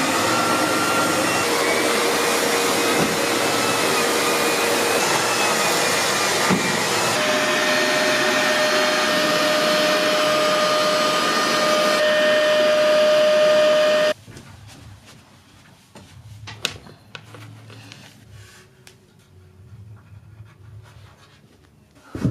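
Cylinder vacuum cleaner running on carpet: a steady rushing noise with thin whistling tones that drift and then hold steady. It stops abruptly about two-thirds of the way through, leaving quiet scattered knocks and taps of wooden bed slats being handled.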